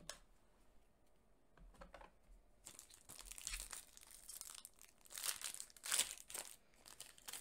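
Foil Yu-Gi-Oh! booster pack being torn open and crinkled by hand. After a quiet start with a few light clicks, the crinkling begins a little under three seconds in, and the loudest tears come near the end.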